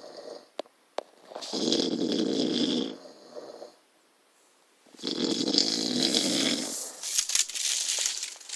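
A person asleep and snoring: a series of long snores, each lasting a second or two, with a short silent pause between two of them and a couple of small clicks before the first.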